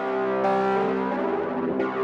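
Background music: sustained synthesizer and keyboard chords changing every second or so.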